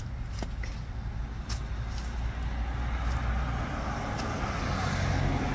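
A motor vehicle passing on the road, its engine and tyre noise swelling from about three seconds in over a steady low rumble. A few faint clicks sound in the first two seconds.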